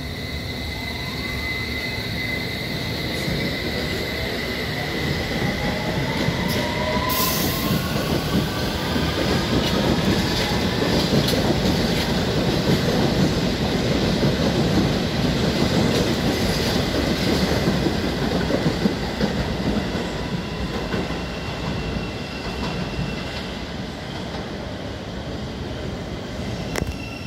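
London Underground S Stock train pulling out of the platform. Its traction motors whine, rising in pitch over the first several seconds as it accelerates. The wheels then rumble and clatter over the track, loudest mid-way as the cars pass, and fade as the train runs off.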